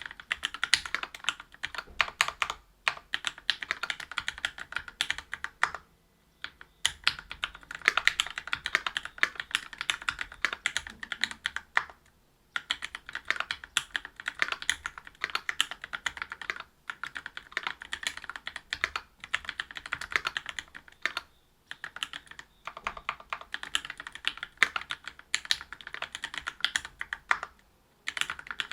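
Fast, continuous typing on a Whale 75 mechanical keyboard with stock Gateron Milky Red Pro linear switches (45 g), a brass plate and GMK keycaps. Rapid keystroke clicks with brief pauses every few seconds.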